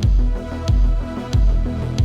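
Electronic background music with a heavy kick drum about every two-thirds of a second over deep bass.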